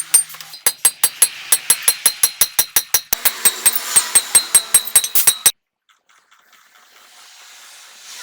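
Rapid, regular metallic clicking, about five clicks a second, each with a short ring. It stops abruptly about five and a half seconds in, leaving a faint hiss.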